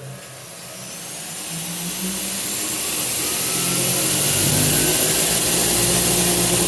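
Large constant-speed centrifugal vacuum turbine spinning up: a rush of air and hiss that grows steadily louder for about four seconds, then runs evenly.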